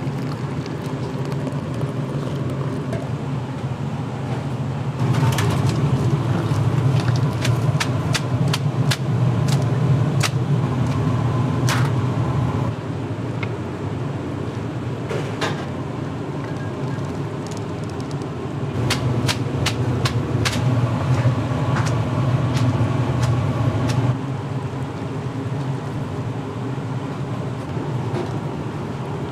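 Busy ramen kitchen: a steady low rumble from the kitchen equipment grows louder twice, with many sharp clinks and knocks of metal strainers, pans and bowls as broth is poured and noodles are plated.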